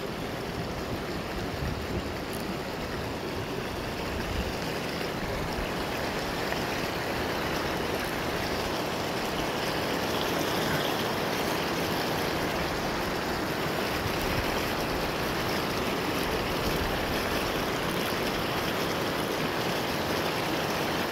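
A shallow river running fast over rocks, a steady rush of water that grows a little louder in the first few seconds.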